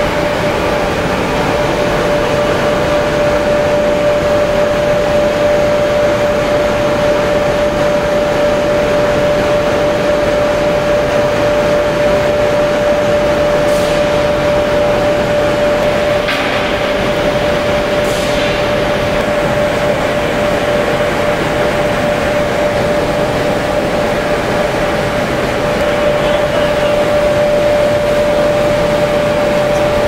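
Gas-fired crucible furnace burning at full fire: a loud, steady roar with a constant hum running through it. A few brief sharp sounds cut in partway through.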